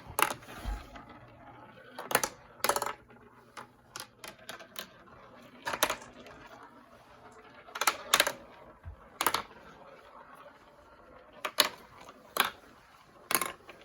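Marbles rolling and clacking through a plastic marble run: irregular sharp clicks, some in quick pairs, over a faint rolling sound.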